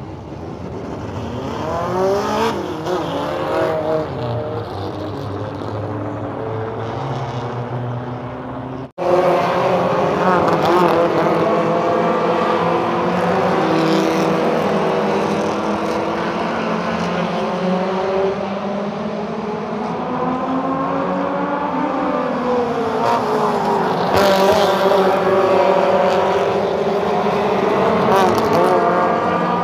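Race cars lapping a short oval track, several engines at once rising and falling in pitch as they accelerate and lift. The sound breaks off sharply about nine seconds in and resumes louder.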